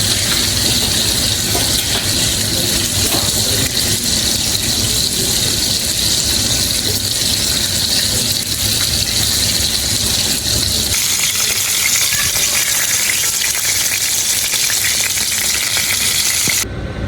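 Chicken frying in hot oil: a steady sizzle that cuts off suddenly near the end.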